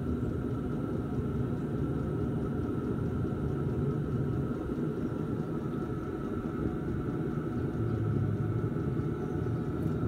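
Chinese 5 kW diesel air heater's exhaust running with a steady low rumble and a faint high whine. The heater is in its full-power start mode and smoking heavily, which the owner takes as a sign that something has gone wrong with it.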